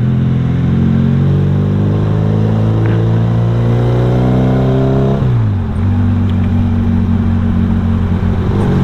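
Honda Revo motorcycle's single-cylinder four-stroke engine running through an aftermarket racing exhaust while riding. The engine note climbs slowly as it pulls, drops sharply about five seconds in, then runs steady at a lower pitch.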